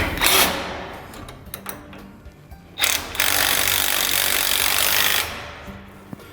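Impact driver running, tightening the bolts of the second carrier bearing on the lift's steel frame. There is a short burst at the start, then one steady run of about two and a half seconds in the middle.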